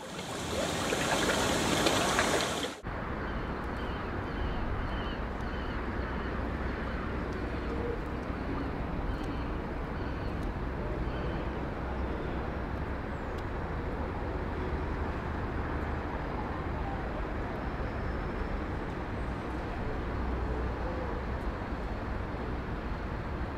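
A loud rising whoosh-like intro sound lasting about three seconds, which cuts off sharply. Then comes a steady city ambience: a low traffic rumble and general street noise.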